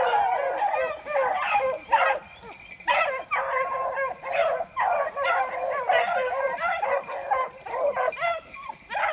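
A pack of beagles baying on a rabbit's trail, several hounds' voices overlapping in a near-continuous chorus, with a short lull a little after two seconds in.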